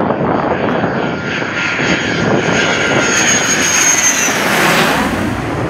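Belgian Air Force F-16's jet engine running loud, a broad rush of jet noise with a thin high whine that fades out about four seconds in.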